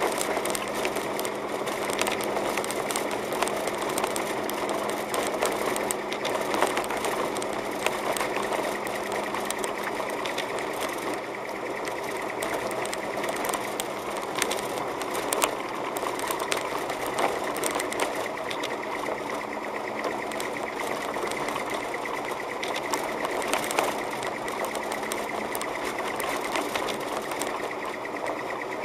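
Car interior noise while driving on a snow-covered road: the engine and tyres run steadily with a fast, constant rattle and frequent sharp clicks over a low hum.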